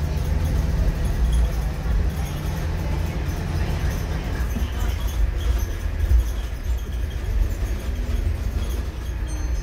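Interior ride noise of an ADL Enviro 300 single-decker bus on a Scania chassis under way: a steady low rumble from the rear-mounted Scania diesel engine and the road. An engine tone fades about three and a half seconds in.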